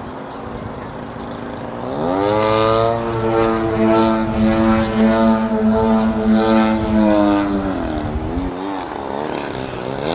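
A DA120 twin-cylinder gasoline engine on a large RC aerobatic plane, swinging a big propeller. It runs at part throttle, revs up sharply about two seconds in and holds high revs steadily for about six seconds, then throttles back near the end.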